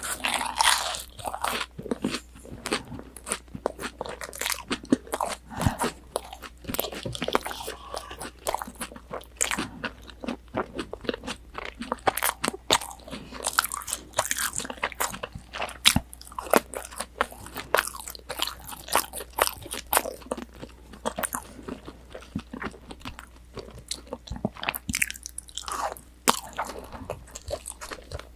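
Close-up crunchy chewing and biting of breaded, deep-fried pork cutlet (tonkatsu), picked up on a binaural microphone: a continuous run of crisp crackling crunches with louder bites scattered through.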